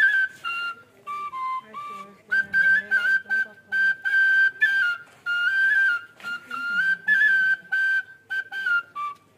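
Bansuri (Indian bamboo transverse flute) played solo: a simple melody of held notes stepping up and down in a narrow high range, dipping lower about a second in, with short breaks between phrases.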